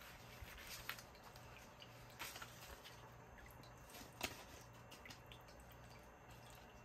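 Near silence with a few faint, brief rustles and taps as paper banknotes are handled and one is slid into a clear plastic binder pocket.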